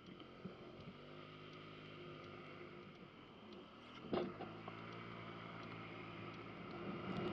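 Honda Ruckus scooter's 49cc four-stroke single-cylinder engine pulling away out of a turn, a steady hum that grows gradually louder, with one short knock about four seconds in.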